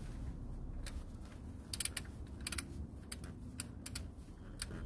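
Torque wrench ratchet clicking in short, uneven runs as the oil sump drain plug is wound in tight.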